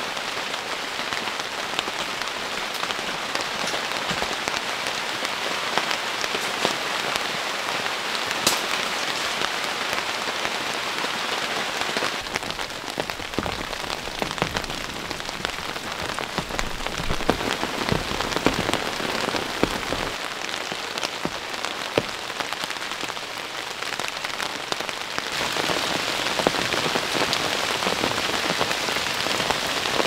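Heavy rain falling steadily, a dense patter of drops on tent fabric. The sound changes character twice, about twelve and twenty-five seconds in.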